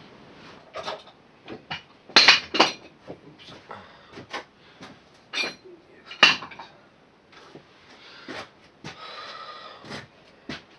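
Metal tools and parts clinking and knocking during hand work on a lawn tractor: a dozen or so sharp clanks at irregular intervals, the loudest about two seconds and six seconds in, with a brief scrape near the end.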